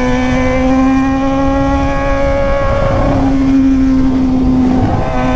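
Yamaha XJ6 inline-four motorcycle at steady cruising speed through a straight-through Atalla 3-inch stainless exhaust with no muffler, the engine note holding an even pitch. The note breaks briefly about three seconds in and again near five seconds.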